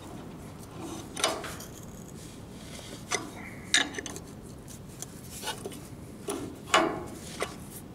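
Steel combination wrench clinking and scraping on the carburetor bowl nut of a John Deere 50 tractor as the nut is loosened, in a series of short separate metallic clinks.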